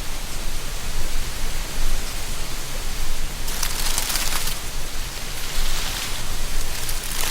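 Wind blowing through tree canopies with dry leaves rustling, a steady hiss that swells into a louder burst of rustling about three and a half seconds in.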